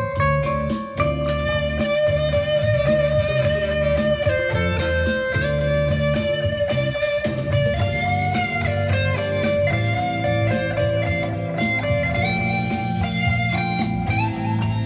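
Fender Stratocaster electric guitar through a Fender Blues Junior IV amp playing a lead line of long held notes that step higher in the second half, over a backing track with a steady bass line.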